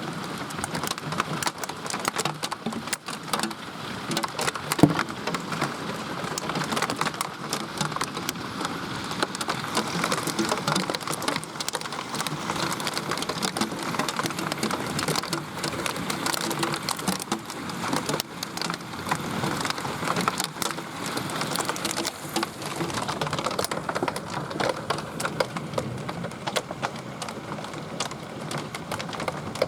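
Very heavy rain mixed with hail pelting down: a steady hiss thick with the clicks of drops and ice striking hard surfaces, with one sharper knock about five seconds in.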